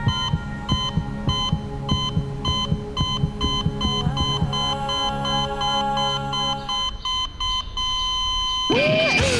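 Heart-monitor (ECG) beeps, each with a low heartbeat thump, over a steady musical drone. The beeps quicken from under one a second to about three a second, a racing pulse, then run together into one held tone. Loud rock music cuts in near the end.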